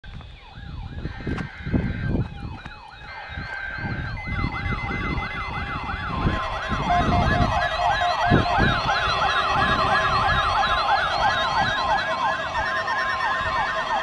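Several NOAA weather radios sounding their warbling, siren-like alert alarms together for a Required Weekly Test. More radios join in about 4 and 6 seconds in, so the overlapping warbles thicken and get louder. Low rumbling thumps run underneath.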